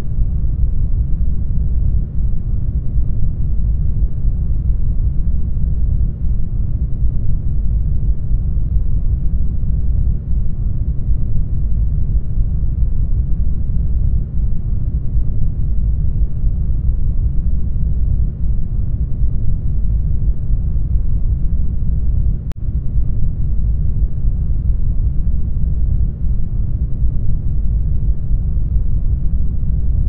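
Isolation-tank ambience: a deep, steady, muffled rumble with no high sounds, like hearing from inside a flotation tank.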